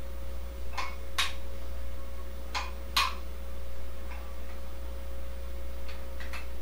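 Dumbbell clinking with each one-arm biceps curl: a pair of sharp metallic clicks about every 1.7 seconds, over a steady low hum.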